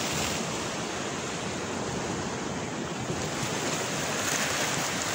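Steady wash of sea waves on a rocky shore, mixed with wind on the microphone.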